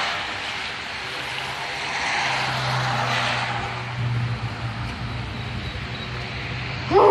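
Road traffic on a busy city street: cars passing one after another with rising and fading tyre and engine noise over a steady low engine hum. A short, loud sound falling in pitch cuts in right at the end.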